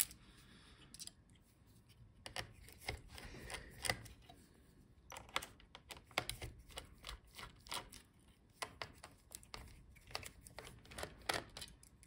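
Faint, irregular clicks and ticks of a small precision screwdriver working the tiny screws of a laptop's heatsink.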